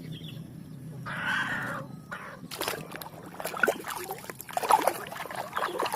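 Water sloshing and trickling as a muddy toy is rinsed and handled, with many light knocks and clicks from about halfway through.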